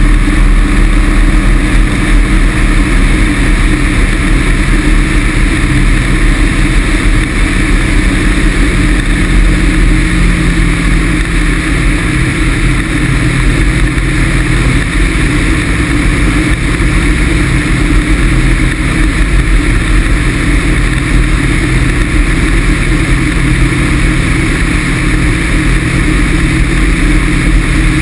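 Steady drone of a Pegasus XL microlight trike in flight: its Rotax 447 two-stroke twin and pusher propeller running evenly, mixed with wind rushing past the wing-mounted camera.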